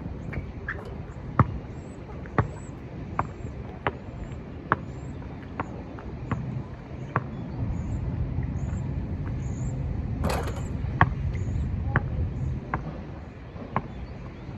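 Sharp knocks repeating roughly once a second over a steady low rumble of wind on the microphone, with one longer, harsher crashing noise about ten seconds in.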